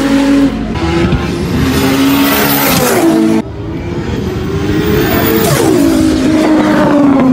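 Car engines at high revs passing at speed, the engine note dropping sharply as each car goes by. There are two passes, with an abrupt cut between them about three and a half seconds in.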